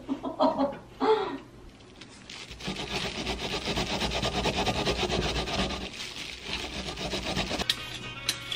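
A peeled Korean pear being grated on a handheld metal grater into a bowl to make pear juice: rapid, continuous rasping strokes. The grating cuts off near the end, followed by a few light clinks.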